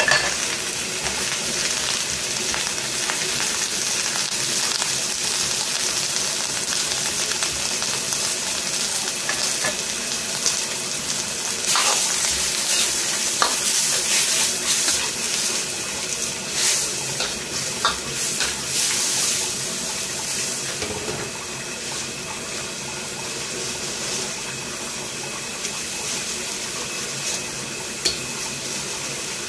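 Bok choy sizzling in a hot carbon-steel wok as it is stir-fried, with a metal ladle scraping and clinking against the pan now and then, most often in the middle. The sizzle eases a little in the last third.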